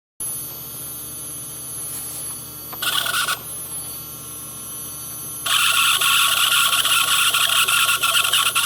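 PwnCNC CNC router spindle running with a steady high whine, giving a brief louder surge about three seconds in, then growing much louder and harsher a little past halfway. The whine is a known problem that the maker's support put down to cold grease in the spindle bearings.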